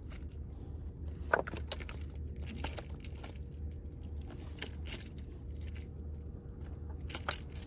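Handling noise: scattered light clicks and metallic rattles over a steady low rumble, with a couple of sharper ticks in the first few seconds.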